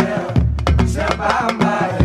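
Music of a Wolof devotional song: a beat of drum strikes over a deep, steady bass.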